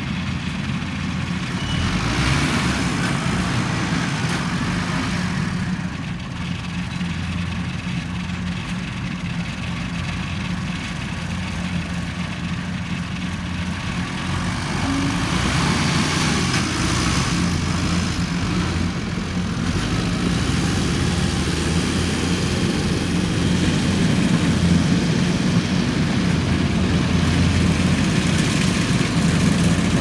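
Kubota DC93 combine harvester's diesel engine running steadily under load as it cuts and threshes rice, a constant low drone with mechanical clatter. It grows a little louder over the last third as it comes closer.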